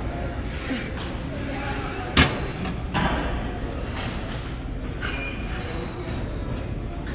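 Weight stack of a glute kickback machine coming down as the set ends: a loud thump about two seconds in and a smaller one about a second later, over steady gym background noise.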